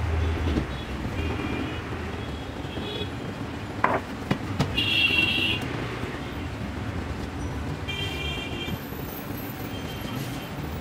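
Road traffic: a steady rumble of engines with short vehicle horn toots sounding again and again, the loudest and longest about five seconds in. A sharp click comes just before it.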